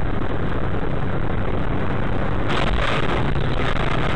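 Steady road and engine noise of a moving car heard from inside the cabin, with a brief brighter hiss about two and a half seconds in.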